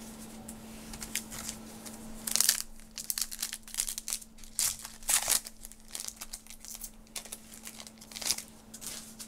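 Trading-card pack wrapper being torn open and crinkled by hand, in irregular crackles that start about two seconds in.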